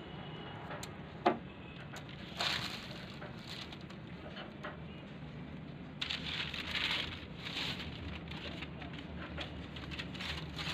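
Newspaper sheets rustling and crackling and masking tape being pulled off its roll, in short bursts, with a sharp click about a second in.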